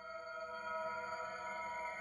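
Background music fading in: sustained synth tones held steady and slowly growing louder.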